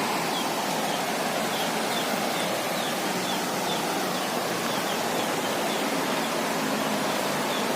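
Steady rushing of a stream or waterfall running high after rain. Faint short high chirps repeat about twice a second through the first few seconds.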